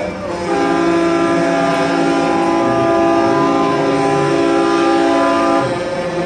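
Several vehicle air horns sounding together in one long held chord, part of a honk-off. The chord starts about half a second in and cuts off shortly before the end.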